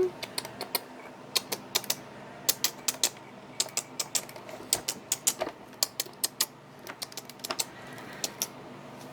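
A series of sharp, irregular clicks, often coming in quick pairs or small clusters, several a second.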